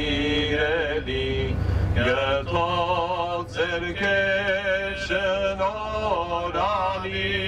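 Male voice chanting a slow sacred melody with held, wavering notes over a steady low drone.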